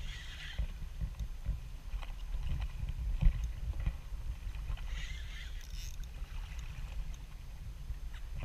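Small waves slapping and lapping against a boat's hull, with a steady low rumble and short splashy hisses. A louder thump comes about three seconds in.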